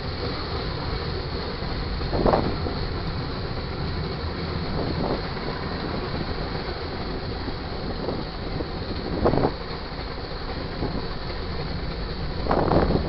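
Freight train cars rolling past: a steady rumble of wheels on the rails, broken by short loud bangs about two seconds in, again around nine seconds, and several together near the end.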